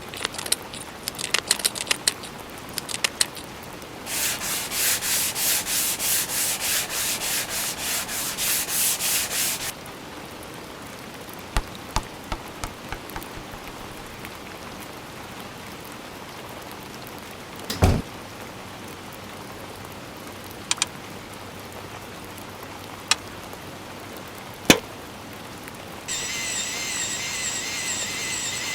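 A run of separate effects: a quick cluster of clicks, then about five and a half seconds of loud, regular rubbing strokes, a couple a second. Scattered single clicks and one heavier knock follow, and near the end a steady hiss with a wavering, chirping tone comes in.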